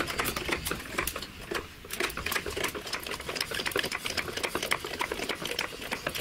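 Hydraulic trolley jack being pumped by its handle while lifting a car under load: rapid metallic clicking and clacking from the pump and handle socket, with a short break about two seconds in.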